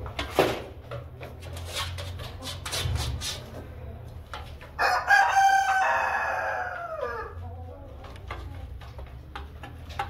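A Light Columbian Brahma rooster crows once, a single long crow lasting about two and a half seconds that begins about five seconds in and falls in pitch as it trails off. Scattered short clicks sound around it.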